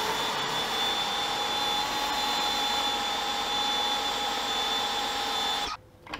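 Greenworks 1700 PSI electric pressure washer running with a 3.0 orifice nozzle spraying into a lidded bucket at about 850 PSI: a steady rushing hiss with a steady whine. It cuts off suddenly near the end.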